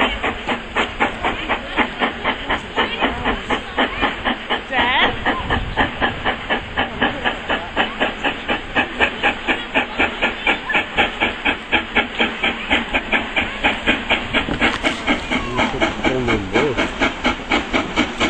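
Steam locomotive "Eric Treacy", an LMS Stanier Black Five 4-6-0, chuffing steadily as it approaches, about four exhaust beats a second over a steady hiss of steam.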